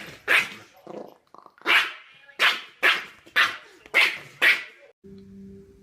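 A dog barking repeatedly, about eight sharp barks, stopping suddenly about five seconds in. A steady low hum follows.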